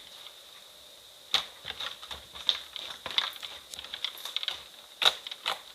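Slime being squeezed and pressed by hand, making irregular sharp clicks and sticky crackles. The clicks start after a quiet first second.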